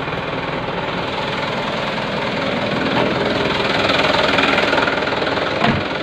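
Truck engine idling steadily just after being started, swelling slightly about two-thirds of the way through, with one short thump near the end.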